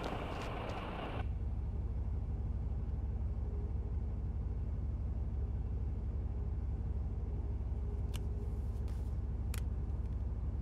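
Steady low rumble of a truck's engine idling, heard from inside the cab, taking over from a light outdoor hiss about a second in. A few faint clicks come near the end.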